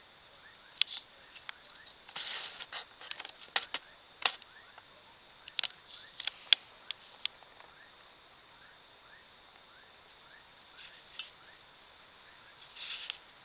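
Steady, high-pitched chorus of crickets and other insects, with many short repeated chirps. Scattered sharp clicks and crackles stand out, the loudest about six seconds in.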